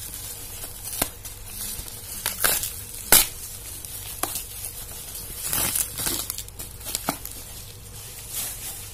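Plastic bubble-wrap parcel packaging being pulled and torn open by hand, crinkling with irregular sharp crackles and snaps.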